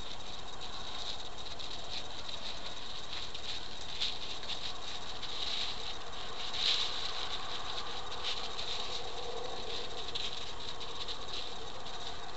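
Crickets chirping steadily at night over a background hiss, with a few faint ticks, the clearest one about six and a half seconds in.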